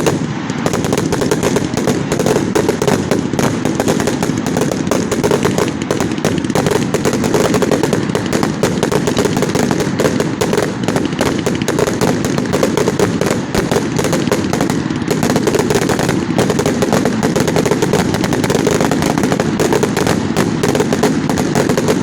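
A 360-shot 'gatling gun' firework cake firing: a fast, unbroken stream of small shots that runs on at a steady loudness without a pause.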